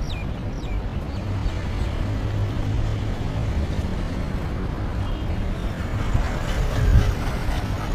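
City street ambience: a steady low rumble of traffic and wind on the microphone, with a few short falling bird chirps in the first second.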